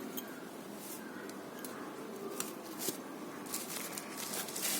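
Faint rustling and handling of merchandise packaging, with a few soft clicks and a little louder rustle near the end.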